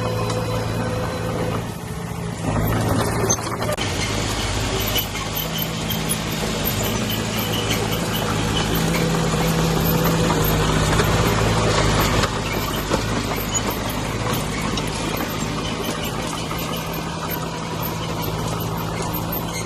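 Heavy diesel engine of earthmoving machinery running steadily, its loudness building gradually and easing off about twelve seconds in.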